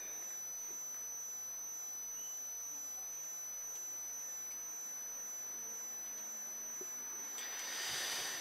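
Quiet room tone with a faint, steady high-pitched tone, and near the end a short hiss of breath as the reciter breathes in close to the microphone.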